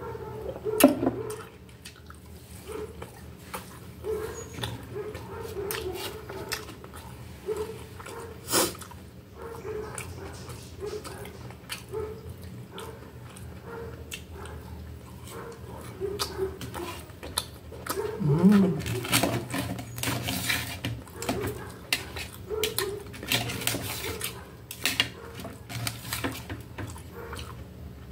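Close-up eating sounds: chewing and other mouth noises, many sharp clicks of a fork and knife tapping and scraping on a metal tray, and short pitched mouth sounds. Near the start there is a drink being swallowed.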